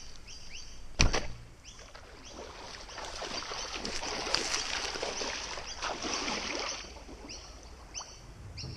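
A person wading fast through a shallow lily pond, water splashing and sloshing around the legs, swelling in the middle and easing near the end. There is a sharp knock about a second in, and birds chirp throughout.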